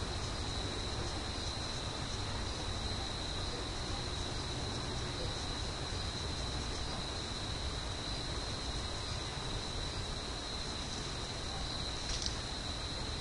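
A steady high-pitched whine over a constant hiss, with one faint click near the end.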